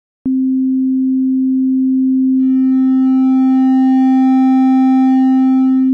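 A steady sine-wave test tone, pushed through FL Studio's Fruity Wave Shaper. About two seconds in it starts to hard-clip as its level passes the threshold. A row of higher harmonics is added to the pure tone, so it sounds brighter and more like a square wave.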